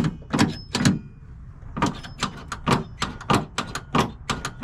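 Rapid repeated clicks and knocks, about three a second with a short pause near the start, as a car door's internal mechanism is worked back and forth by hand.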